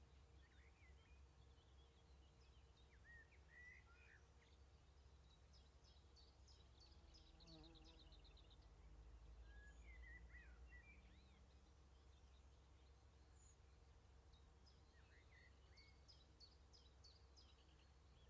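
Faint birdsong: short warbling phrases and a couple of quick trills, one about seven seconds in and one near the end, over a low steady rumble.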